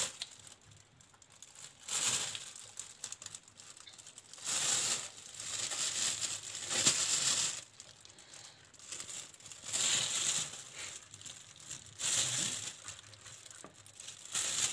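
Thin plastic freezer bag crinkling in short bursts every two seconds or so as strawberries are put into it by hand one at a time.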